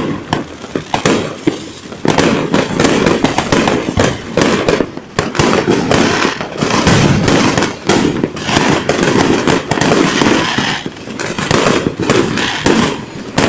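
Fireworks going off in a dense, near-continuous barrage of bangs and crackles, easing briefly a few times before picking up again.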